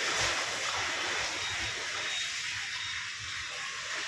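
Borewell drilling rig running: a steady rushing hiss over a low, uneven engine rumble.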